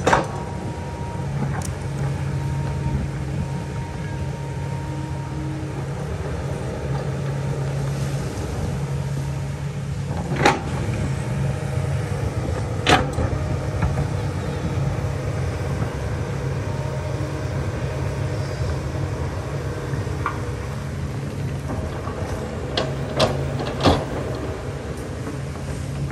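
Kobelco hydraulic excavator's diesel engine running steadily under work, with a few sharp knocks from the machine at work: one about ten seconds in, another a few seconds later, and two close together near the end.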